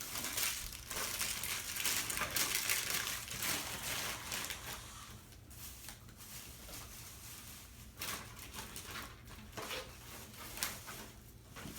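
Wrapping paper rustling and being crumpled, loudest in the first few seconds and then quieter, with a few light clicks and knocks.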